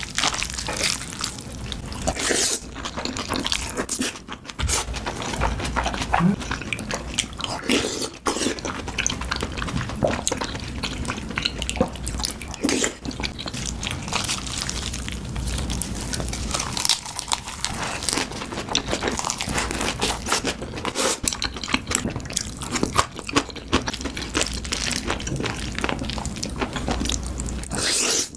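Close-miked eating sounds: wet chewing and smacking, with many quick clicks of a spoon or chopsticks against a bowl.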